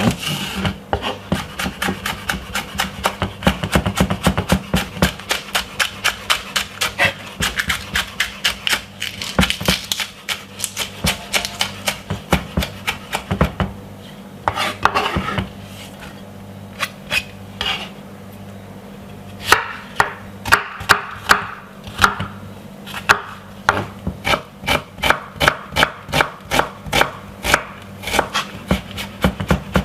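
Knife chopping spring onion on a cutting board: quick, regular strokes, about three to four a second, pausing for a few seconds midway, then starting again.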